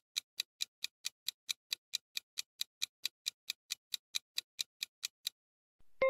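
Quiz countdown-timer sound effect: a clock ticking at about four and a half ticks a second, stopping just after five seconds as time runs out. Right at the end a bright chime rings out, the cue that the answer is revealed.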